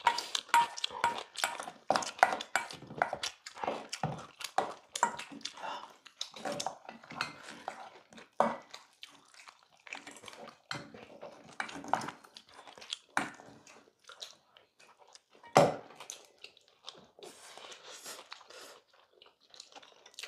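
Wooden chopsticks and spoons clinking and scraping against stainless steel bowls while people eat bibimbap, with chewing heard between. The taps are irregular, with one sharper knock about three-quarters of the way through.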